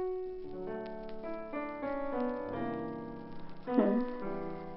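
Piano background music, a melody of single notes over chords, with a brief sliding sound and a loud peak near the end.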